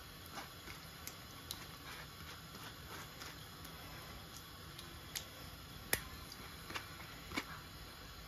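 Tamarind pulp squeezed and worked by hand in a metal mesh strainer over a clay pot, a soft wet squishing with scattered light clicks of metal against the strainer; the sharpest click comes about six seconds in.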